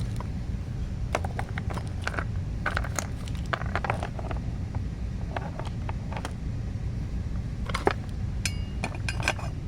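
Small parts of a plastic survival multi-tool kit being handled: scattered clicks, taps and light clatter of plastic and metal pieces, over a steady low rumble.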